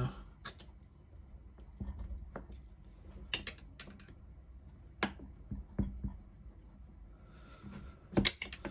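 Scattered clicks and light knocks as a long metal tool and the servo motor's housing are handled and tapped during disassembly, with the loudest pair of knocks near the end.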